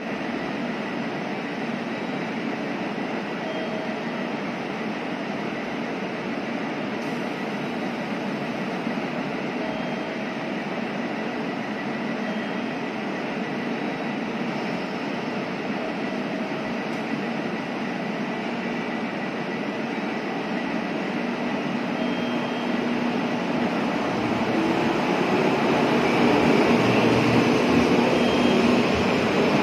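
Steady hum of an electric train station platform. Then, from about 21 s, an electric commuter train runs in close alongside the platform: a motor whine creeps up in pitch and the running noise grows louder toward the end.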